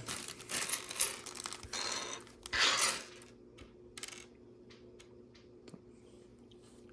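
Small plastic LEGO pieces clattering and rattling together on a table for about three seconds, then a few separate clicks as pieces are moved around.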